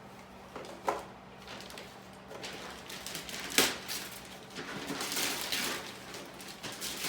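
Wrapping paper rustling and tearing as a gift is unwrapped, with scattered crinkles and two sharp knocks.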